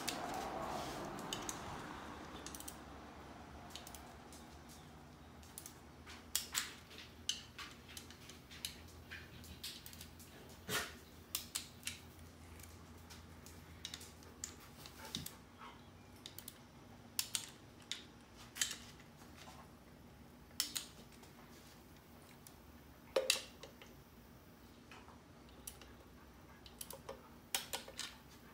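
Click-type torque wrench re-checking the intake manifold bolts on an LS V8, giving scattered sharp clicks, singly and in quick clusters, a few seconds apart, as each bolt reaches its set torque.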